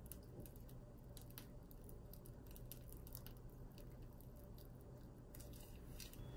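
Faint squishing and small crinkly clicks of a piping bag being squeezed as cream cheese frosting is drizzled, over a low steady hum.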